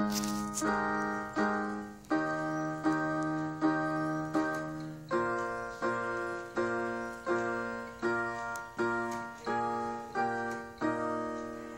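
Portable electronic keyboard on a piano voice, playing chords struck about every three quarters of a second. Each chord fades before the next, and the bass note changes every few chords.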